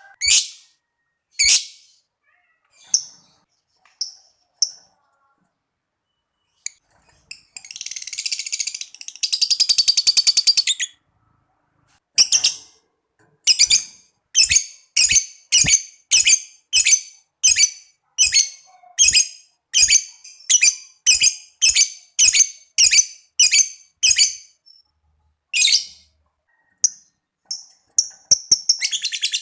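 Lovebird calling: sharp, high chirps, the 'ngetik', and a long rapid chattering trill, the 'ngekek', about 8 seconds in that lasts about 3 seconds. Then a steady run of chirps about twice a second, and the trill starts again near the end.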